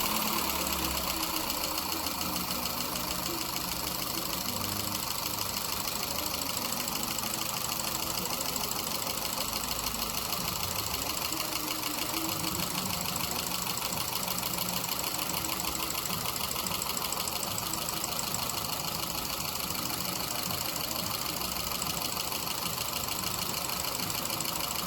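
Volkswagen Golf Mk6 petrol engine idling steadily just after being started on its newly replaced timing chain. The sound is a little louder for the first couple of seconds as it settles, then stays even, with a fine fast ticking over the run.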